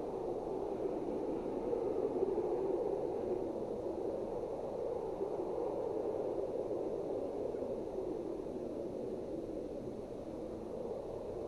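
A twin-engine business jet rolling out after landing, heard from a distance as a steady rushing jet roar. It swells about two seconds in and slowly fades as the aircraft slows down the runway.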